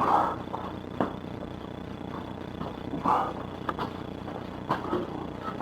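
A few scattered knocks and clunks, a wooden rack being handled and set down, over a steady low hum.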